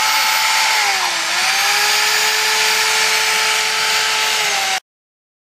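Handheld electric power tool running at high speed while sanding a motorcycle wheel, with a steady whine over a harsh hiss. Its pitch sags briefly about a second in as it is pressed harder, then recovers, and the sound cuts off abruptly near the end.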